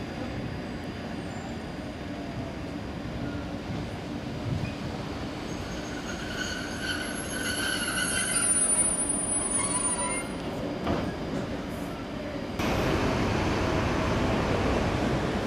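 Wheels of an ÖBB 2068 diesel shunter and a loaded DDm car-transport wagon rolling slowly through a curved siding, the flanges squealing in high tones about halfway through. Near the end a louder even rushing noise sets in suddenly.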